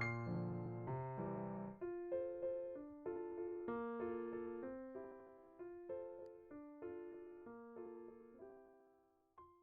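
Background music: a gentle piano melody of single notes that fades out gradually, with a last short note just before the end.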